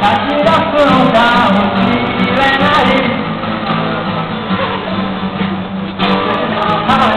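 Live acoustic guitar song: an acoustic guitar strummed while a man sings over it.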